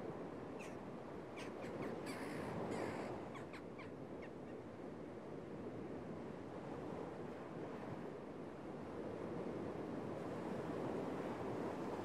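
Small waves breaking and washing steadily on a sandy beach, with gulls giving a run of short, sharp calls in the first few seconds.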